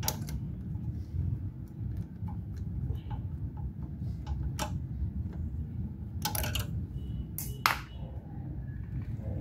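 Metal motorcycle engine parts and hand tools being handled, giving scattered clicks and clinks, a few sharper ones about two thirds of the way through, one ringing briefly, over a steady low hum.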